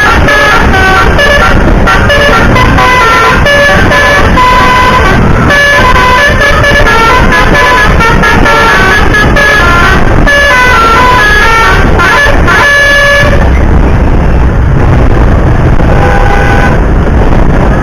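Bus telolet basuri multi-trumpet horn playing a fast tune of short, stepped notes, several pitches sounding at once. About thirteen seconds in the tune stops and a low rumble takes over, with one more short horn note near the end.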